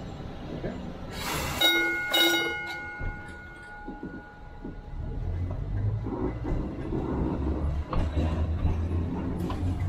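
A streetcar gong struck twice in quick succession about a second and a half in, each strike ringing on for a couple of seconds. From about five seconds in, a low rumble from the streetcar itself sets in.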